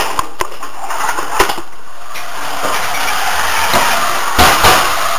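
Radio-controlled car running, with a steady rushing noise broken by several sharp knocks and clatters, the loudest pair about four and a half seconds in.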